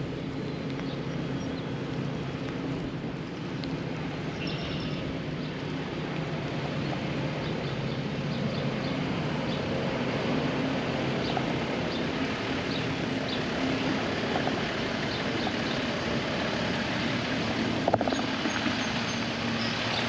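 Steady low engine drone under a wash of rain and outdoor noise; the drone fades after about twelve seconds while the noise grows slightly louder.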